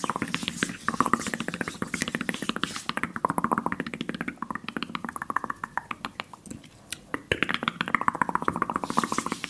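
Fast ASMR mouth sounds close to the microphone: rapid wet clicks and pops of tongue and lips, many a second, their tone rising and falling as the mouth shape changes.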